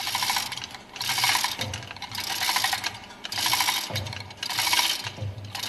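Ratchet wrench clicking in repeated strokes, about one a second, likely working the center screw of the lifting tool to draw the plunger up out of a marine diesel's high-pressure fuel pump.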